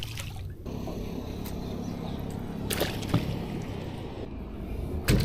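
A fishing rod swishing through the air in a cast, one quick falling whoosh about three seconds in, over a steady low rumble.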